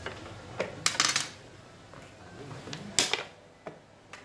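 Xiangqi pieces clacking down on a wooden board and against each other as moves and a capture are made: a quick cluster of sharp clicks about a second in, and another sharp click about three seconds in.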